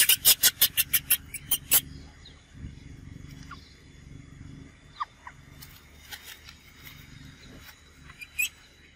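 Macaque giving a loud rapid run of harsh calls, about seven a second, for roughly the first two seconds, then a few short, faint, falling squeaks from the baby macaques and two brief calls near the end.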